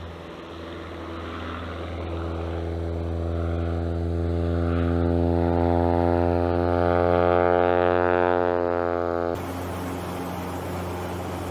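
Aviat Husky A1-B light plane flying overhead: the drone of its propeller and Lycoming O-360 four-cylinder engine grows louder as it comes closer. About nine seconds in it cuts suddenly to a steadier engine drone heard from inside the cockpit.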